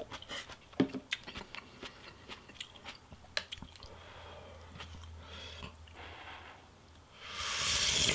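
Close-miked eating sounds: chewing pho noodles with soft, wet mouth clicks. Near the end comes a loud slurp of hot broth sipped from a spoon.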